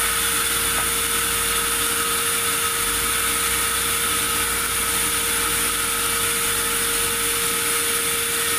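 Sawmill saw machinery running steadily, a constant machine noise with a high, even whine.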